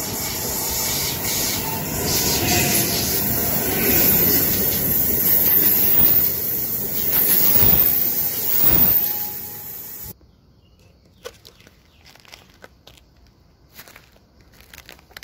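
Trenord electric passenger train running through the station close by: wheels on the rails, growing louder as it passes, with high wheel squeal over the rumble. The sound cuts off suddenly about ten seconds in, leaving quiet outdoor background with faint scattered clicks.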